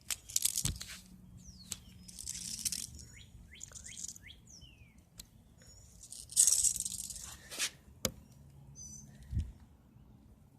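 Small birds chirping in short falling notes, mixed with several brief bursts of scraping or rustling noise and a few sharp clicks.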